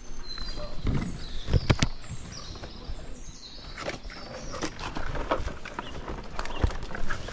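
Dry coconut-palm fronds and stalks rustling and knocking as a climber moves through the crown of the tree, with a cluster of sharp knocks about one and a half to two seconds in. Birds chirp with short high calls over the first few seconds.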